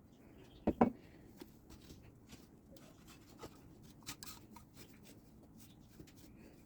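Small carburetor parts being handled and fitted by hand: faint scattered clicks and light rubbing, with a brief louder double sound just under a second in.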